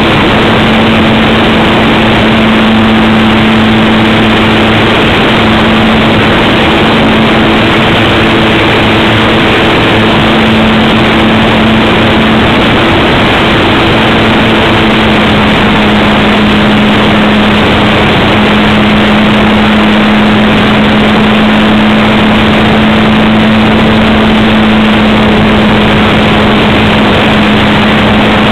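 Brushless electric motor and propeller of an RC Cub model airplane running in flight, heard close up from the onboard camera: a steady hum over a loud, even hiss. The hum's pitch wavers for a few seconds about halfway through.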